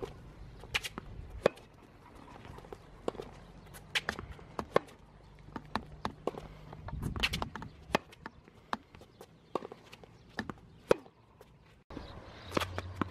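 Tennis rally on a hard court: sharp pops of the racket strings striking the ball and of the ball bouncing, at an irregular rally rhythm, mixed with the player's footsteps as she moves along the baseline.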